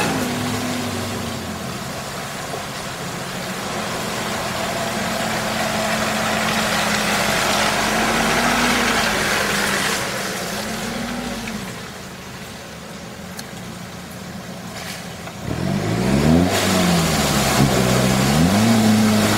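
Off-road 4x4 engines working through deep mud: an engine running at a steady pitch with small rises and dips, then, from about three quarters of the way in, a louder engine revving up and down repeatedly as a vehicle churns through the mud hole.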